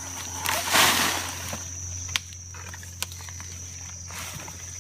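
Digging taro out of the soil: a loud scraping rush about a second in, then two sharp knocks, over a steady low hum.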